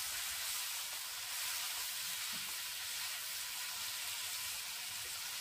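Snake gourd and potato pieces frying in hot oil in a wok, a steady sizzle.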